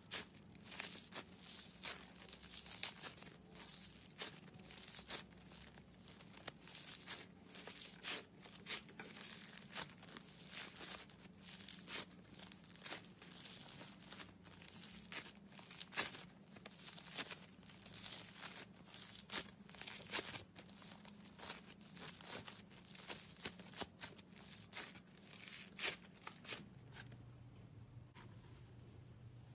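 Slime being worked and squished, giving a dense run of irregular sticky crackles and pops that stop about three seconds before the end, leaving a faint low hum.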